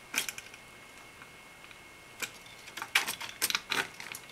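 Light clicks and taps of a metal tower CPU cooler being lowered and lined up on the standoffs around a motherboard's CPU socket: one tap near the start, then a cluster of clicks from about two to four seconds in.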